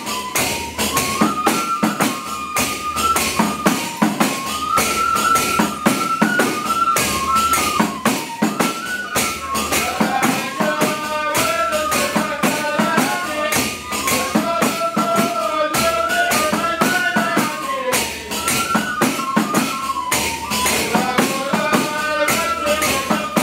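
Traditional Hadrami devotional chanting: a group of men sing a stepping melody together over a steady, dense rhythm of hand-struck frame drums. About halfway through, a second, lower melodic line joins in.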